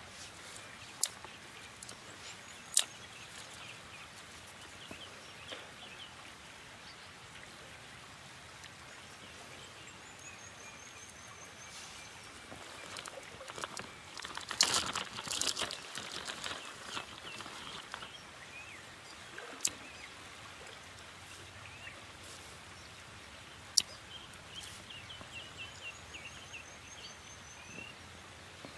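Dry twigs rustling and clattering as kindling is laid onto a small fire stack, loudest around the middle, with a few sharp clicks. Birds chirp now and then over a steady outdoor background.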